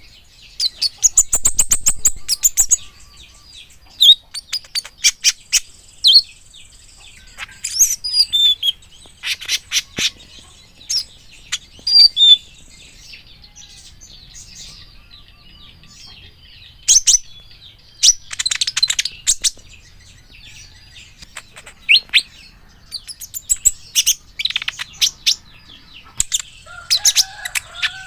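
Kolibri ninja (a sunbird) singing: bursts of rapid, high-pitched chirps and trills, repeated with short pauses between phrases.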